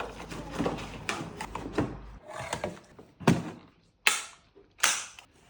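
Vacuum cleaner parts and packaging being handled: rustling and small clicks, then three sharp knocks about a second apart.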